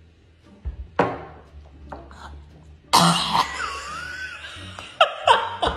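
People coughing and clearing their throats after downing a very sour shot of lemon juice and Warheads sour spray, with a wavering strained vocal cry about three seconds in and more coughs near the end.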